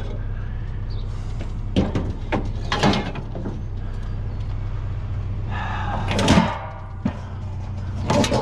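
Scrap items being shifted on a loaded truck: several sharp knocks, a louder rattling scrape about six seconds in, and another knock near the end, over a steady low hum.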